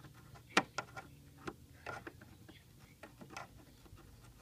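Hard plastic clicking and knocking as a car center console's rear air-conditioning duct is pressed and worked into place by hand. Irregular clicks, the sharpest about half a second in.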